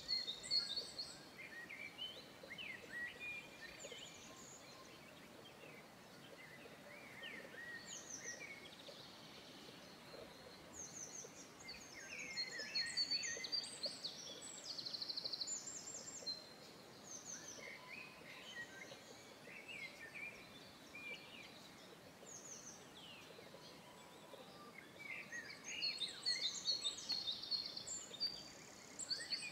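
Small songbirds chirping and trilling on and off, with short quick notes and a rapid trill, over a faint steady background hiss; the song grows busier near the end.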